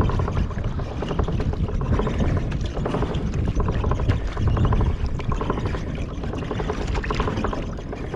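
Wind rumbling and buffeting on the microphone over shallow water lapping and splashing.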